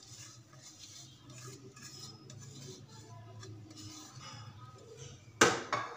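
Steel spoon scraping browned fried onion off a plate into a steel bowl of mashed potato, soft and quiet, then one loud sharp clink of metal on metal near the end.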